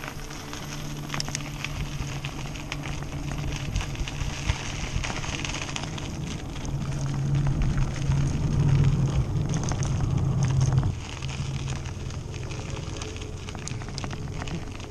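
Bicycle tyres crunching and crackling over a dry dirt and gravel path, with many small clicks and rattles from the bike, and wind buffeting the microphone as a low rumble. The rumble grows louder from about seven seconds in and drops off sharply near eleven seconds.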